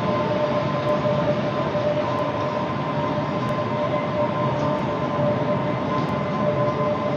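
The odd sound heard at One World Trade Center: a steady rushing drone with two held tones, one middling and one higher, sounding together without change.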